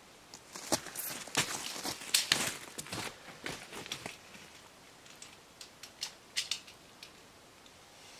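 Crushed-stone gravel crunching and shifting under boots as a person gets up from kneeling and steps about: a run of irregular crunches and clicks, busiest in the first few seconds, with a few more a little past the middle.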